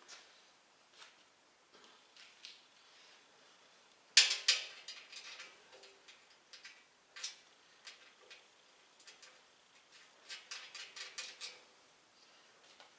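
Small steel hardware clinking: bolts, nuts and washers handled while casters are bolted on, with one sharp clank about four seconds in and a quick run of clicks near the end.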